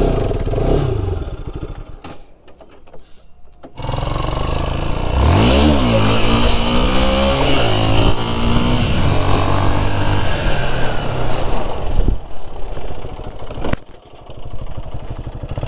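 Motorcycle engine running quietly, then about four seconds in pulling away hard, the revs climbing and falling through gear changes under loud wind noise on the microphone. The throttle closes briefly near the end before the bike carries on.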